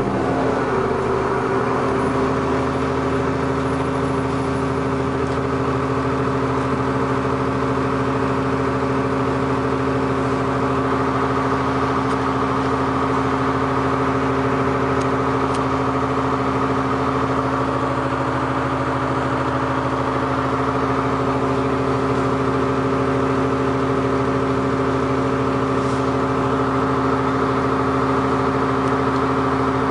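New Flyer D40LF transit bus's diesel engine settling back down from a rev in the first second, then idling steadily.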